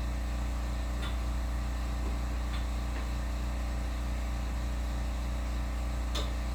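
Steady hum of a workshop machine's electric motor running, with a few faint light clicks of metal parts being handled.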